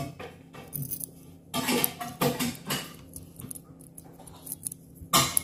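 Light metallic clicking and jingling of a small keychain dental-cleaning kit, its metal case, tools and key ring handled in the fingers, in a scatter of short irregular clicks.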